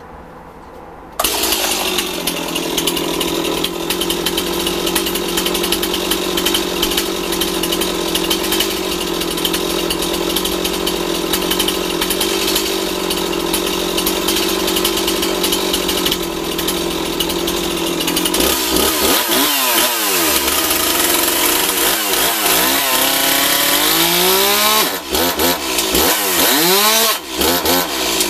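Stihl MS 260 two-stroke chainsaw engine. It cuts in suddenly about a second in, then runs at a steady speed. Over the last ten seconds it is revved up and down again and again without cutting.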